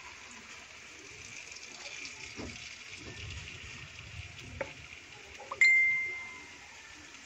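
A smartphone message notification: one bright ding about five and a half seconds in, ringing out over a second or so. Before it, a utensil stirring batter in a glass bowl, with soft scraping and a few light clinks against the glass.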